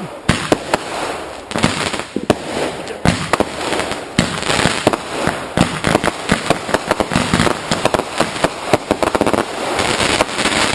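Fireworks going off: rapid, irregular cracks and pops over a continuous hiss, fading out right at the end.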